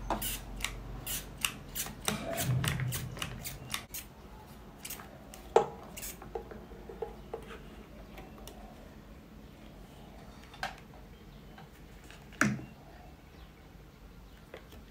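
Rapid clicking of a hot glue gun's trigger as glue is squeezed onto a plastic toy truck, about two or three clicks a second for the first several seconds. After that come a few scattered knocks of plastic and metal, with the can pressed onto the truck bed.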